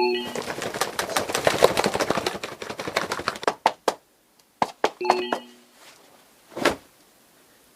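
Foley sound effects performed for a scene of birds and two people sitting down: a dense run of clicking and rustling for about three and a half seconds, short whistle-like bird chirps at the start and again about five seconds in, a few sharp knocks, and a soft rustling thump near the end.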